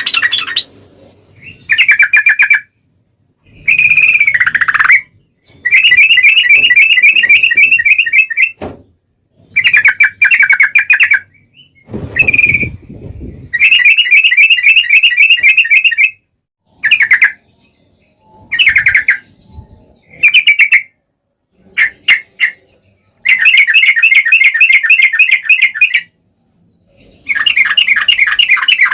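Yellow-vented bulbul (trucuk) song: loud bursts of rapid chattering notes, each lasting up to a few seconds, repeated over and over with short pauses between.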